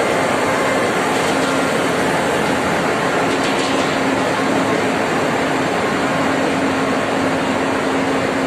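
Ship's engine-room machinery running: a loud, steady wash of engine and auxiliary noise with a constant low hum.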